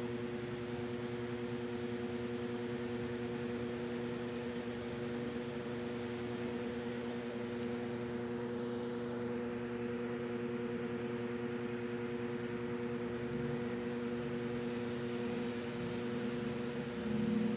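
A steady hum from a small electric motor, holding several unchanging tones; it gets a little louder and a lower tone joins near the end.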